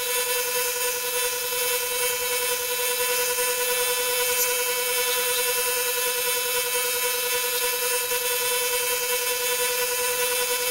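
Lathe motor running with a steady whine while sandpaper is held against a spinning wooden handle blank, adding a hiss.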